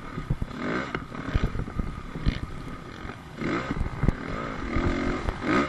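Dirt bike engine revving up in three short rising bursts and dropping back between them, with scattered sharp knocks from the bike over the rough motocross track.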